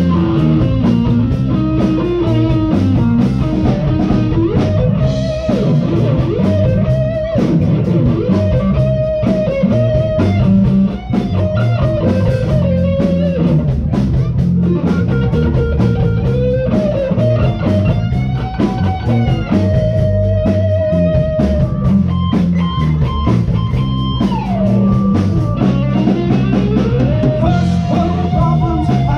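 Live blues band playing an instrumental passage: electric guitars, bass and drum kit, with a lead line of long held notes that bend and slide in pitch.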